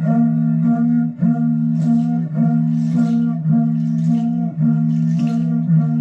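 Background music: a short melodic figure repeating over a sustained low note, with light percussion about once a second.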